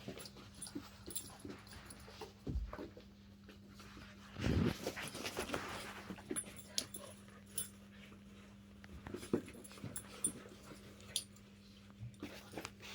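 A Jack Russell terrier and a young Rottweiler puppy playing tug of war: dog sounds and scuffling in short bursts, with the loudest burst about four and a half seconds in.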